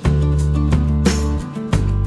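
Background music: a guitar-led song with a strong bass and a regular beat.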